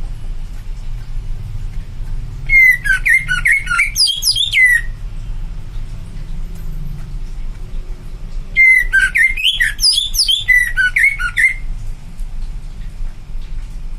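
A captive green leafbird (cucak ijo) singing in full 'gacor' fighting mode: two loud outbursts of rapid, sliding whistled and chattering notes, each about two to three seconds long, the first a couple of seconds in and the second past the middle, over a steady low hum.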